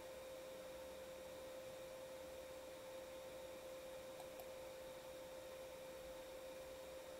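A faint, steady single tone held at one pitch over a low hiss.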